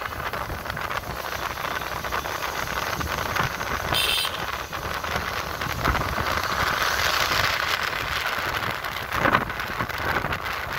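Steady wind and road noise from a motorcycle riding along a road, with a low engine rumble beneath it. A brief high-pitched sound cuts through about four seconds in.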